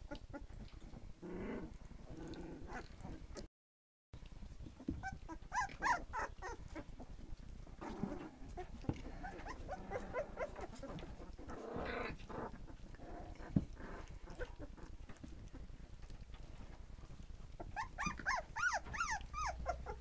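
A litter of three-week-old American Staffordshire terrier puppies whimpering and squealing in short, high squeaks that rise and fall. The squeaks come in clusters and are busiest near the end, with a brief dead-silent break about three and a half seconds in.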